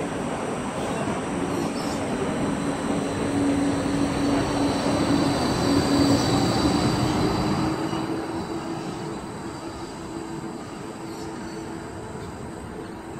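Bombardier Flexity 2 light-rail tram pulling away from a platform stop: a steady electric hum over the rumble of its wheels, building to a peak about six seconds in and then easing off as it moves away.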